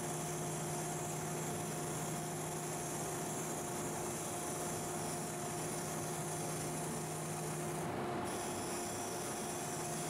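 Wood lathe running with a steady motor hum while a bowl gouge cuts into spinning Osage orange, giving a steady hiss of shavings coming off the wood. The hiss dips briefly about eight seconds in.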